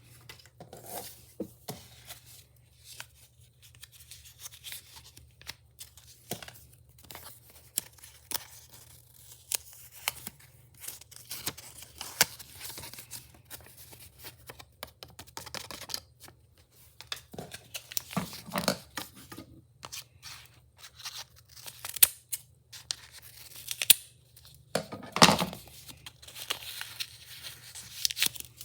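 Packaging being torn open by hand: irregular tearing and crinkling with sharp snaps and clicks, over a faint steady low hum.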